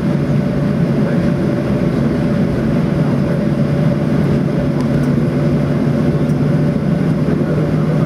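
Steady cabin noise of a Boeing 737-800 taxiing, heard from inside the cabin over the wing, with its CFM56-7 engines running at low power and a constant low hum.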